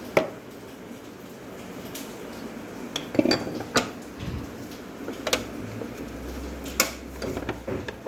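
Dishes and food containers being handled, giving several separate sharp clinks and knocks. The loudest comes just after the start.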